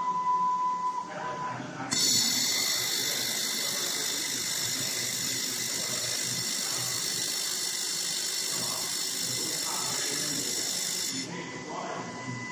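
Desktop three-axis automatic welding machine at work: a loud, steady, high hiss with several whistling tones starts suddenly about two seconds in and cuts off suddenly near the end. Before and after it, a steady mid-pitched whine with softer mechanical noise.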